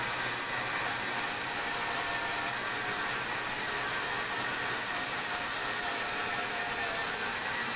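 Homemade sawmill running steadily as it saws through a poplar log, a continuous machine whine with no breaks.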